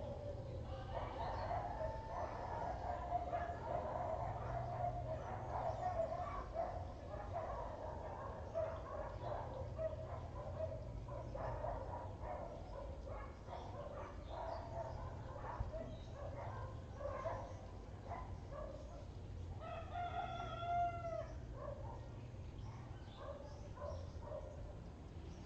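Birds calling on and off, with a louder drawn-out call about twenty seconds in.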